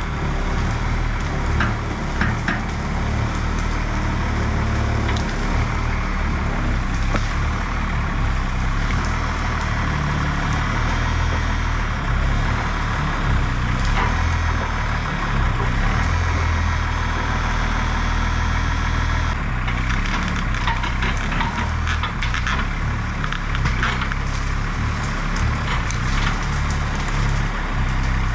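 Cummins 6BT diesel of an Oshkosh plow truck running, its revs rising and falling, as the plow blade shoves a log aside, with wood crunching and cracking against the steel, most of it in the second half.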